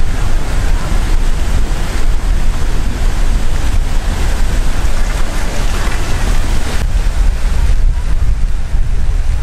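Wind buffeting the microphone: a loud, steady low rumble with a rushing hiss over it.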